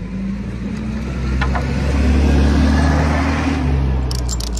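A vehicle's engine passing close by, getting louder to a peak about halfway through and then fading away. A rapid clicking starts near the end.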